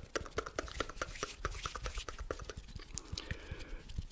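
ASMR mouth sounds close to the microphone: a rapid run of wet mouth clicks and smacks, made into cupped hands. About three seconds in the clicks thin out into a softer, breathy sound.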